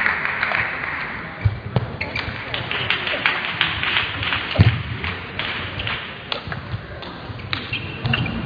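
Applause dies away early on. Then table tennis balls tick and bounce in a sports hall, with a few low thumps and voices in the hall.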